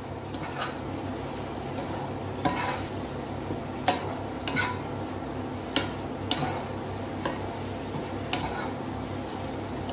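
Wooden spatula stirring pechay, carrot and fried tofu in a pot, with scattered knocks of the spatula against the pot over a steady low sizzle from the simmering food.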